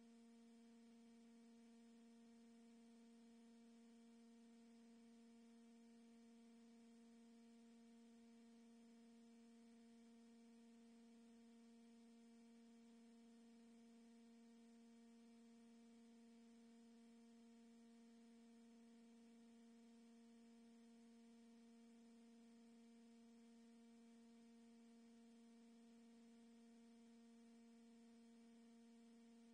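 Near silence, with a faint steady hum holding one low pitch and its overtones.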